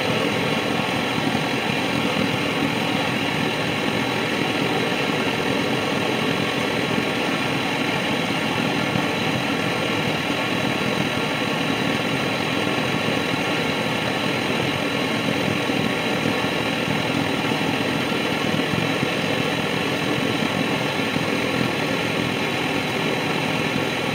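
Pressurised paraffin blowlamp burning, its vaporised paraffin jet making a steady row that does not change.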